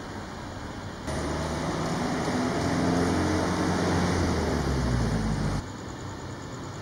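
Volvo FL road-rail truck's diesel engine running as it creeps along the rails. It comes in suddenly about a second in, with a low pitched hum that shifts slightly in pitch, and cuts off abruptly near the end over a steady low background hum.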